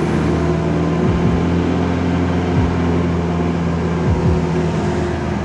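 Motor vehicle engine running at a steady speed: an even, low drone with a few short falling tones.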